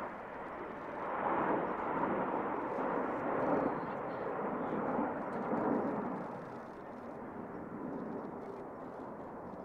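Jet noise from Blue Impulse Kawasaki T-4 jets on a display pass: a rushing noise that swells during the first few seconds and fades after about six seconds.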